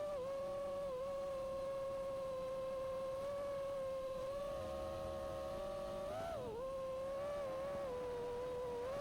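A 5-inch FPV quadcopter's brushless motors and propellers whining at a steady high pitch. The pitch wavers slightly with throttle changes and dips briefly about six and a half seconds in.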